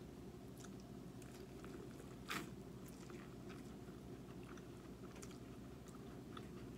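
Close-up chewing of corn on the cob, with faint wet clicks and one louder crunchy bite a little over two seconds in.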